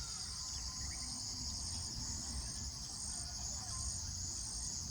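Steady high-pitched insect chorus, like crickets, with a pulsing call repeating about once a second over it. A few faint bird chirps and a low rumble sit underneath.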